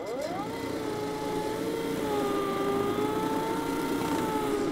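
EGO 56V Select Cut cordless lawn mower's motor and multi-blade deck starting up, its whine rising over the first half-second, then running steadily while cutting grass. It is making a funny noise that has her suspect it was not started properly.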